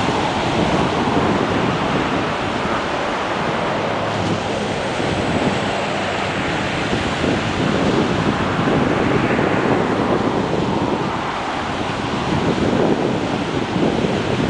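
Ocean surf: small waves breaking and washing in as white water, a steady rushing with gentle swells in loudness.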